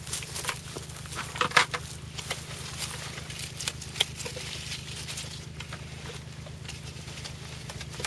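Grapes being hand-picked: vine leaves rustling and an irregular scatter of sharp clicks and snips as clusters are cut from the vine, loudest about a second and a half in, over a steady low hum.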